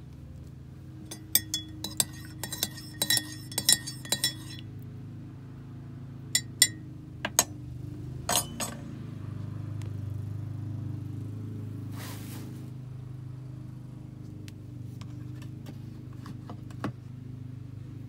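A metal teaspoon stirring coffee in a ceramic mug, clinking against the sides in a quick run of ringing taps. A few separate clinks follow as the spoon is set down on a ceramic spoon rest. A low steady hum runs underneath.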